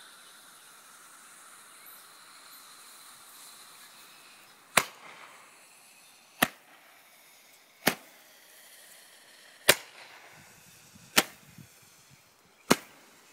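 A multi-shot firework fired from a hand-held homemade launcher: a faint hiss, then six sharp pops about one and a half seconds apart, beginning about five seconds in.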